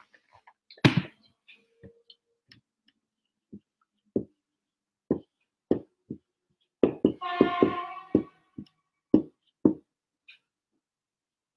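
Dry-erase marker tapping and knocking against a whiteboard in a string of short, sharp strokes as letters are written, with a brief squeaky tone from the marker about seven seconds in.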